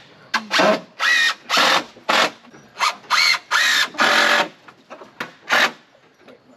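Cordless drill driving screws into wooden roof rafters in a quick series of short trigger bursts, each rising in pitch as the motor spins up: about a dozen in the first four and a half seconds, then two more near the end.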